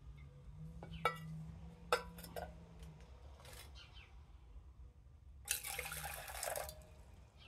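Glass clinks as a glass beaker is handled and set down in a glass dish, then a stream of hot distilled water is poured into the beaker for about a second and a half near the end, rinsing the gold powder.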